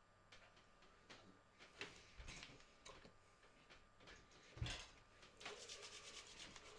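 Near silence in a quiet room, with faint taps and rustles of hands signing and touching. There is a soft thump about four and a half seconds in and a short run of quick faint ticks after it.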